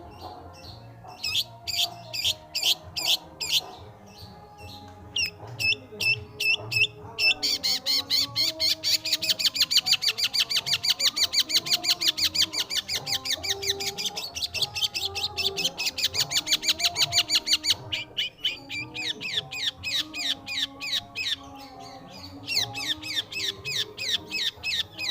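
Long-tailed shrike (pentet/cendet) singing in sharp, high, repeated notes. The notes start spaced out, then break into a long, fast, rattling run of about ten seconds, then slow back into spaced, repeated notes.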